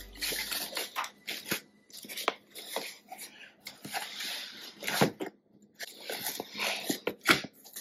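Cardboard shipping box being handled and pulled open by hand: flaps rustling, scraping and tearing, with many small clicks and a couple of sharper knocks.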